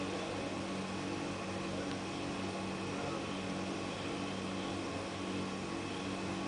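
Steady low hum with hiss, unchanging throughout.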